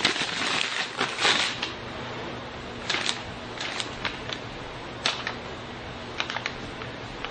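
Sheet of paper rustling and crinkling in short bursts about a second in, then scattered light clicks and taps over a steady background hiss.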